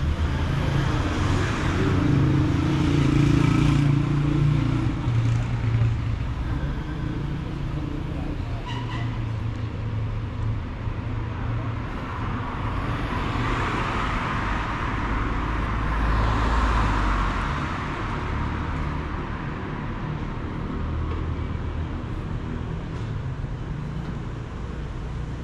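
City street traffic: a car engine hums in the first few seconds, then a car passes about halfway through, its noise swelling and fading, over steady road noise.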